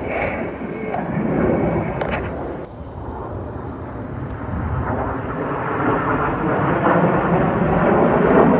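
Jet noise from the Red Arrows' BAE Hawk T1 trainers, whose Adour turbofan engines give a rushing roar. It dips about three seconds in, then builds steadily louder as the jets approach.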